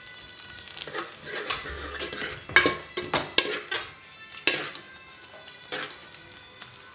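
Metal utensils clinking and knocking against cookware, about a dozen sharp clinks in irregular succession, with a light sizzle of frying underneath.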